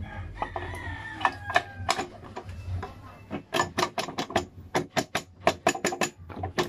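Sharp metallic tapping on an aluminium motorcycle engine crankcase as its halves are fitted together: a few scattered taps, then from about three seconds in a quick run of ringing taps, about five a second.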